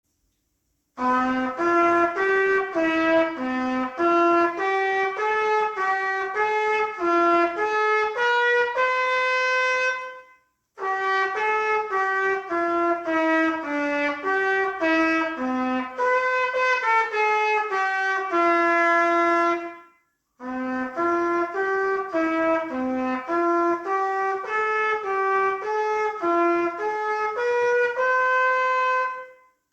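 Solo trumpet playing a slow hymn melody, one note at a time, in three phrases with a brief pause between them, each phrase ending on a held note.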